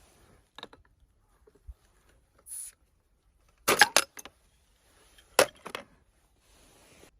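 Sharp clicks and knocks in two quick clusters about a second and a half apart, after a single click and a brief hiss.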